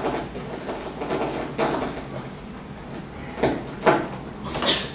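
Handheld microphone being handled and passed from hand to hand: rubbing and knocking noises on the microphone, a few irregular short bursts, strongest near the end.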